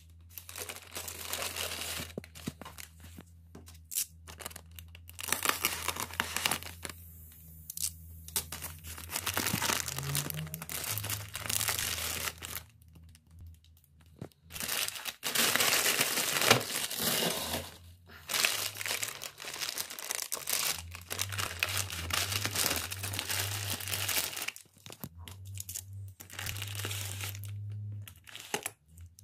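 Plastic packaging being handled and opened: a clear plastic bubble-wrap bag crinkles and tears. The sound comes in irregular bursts with short pauses between them.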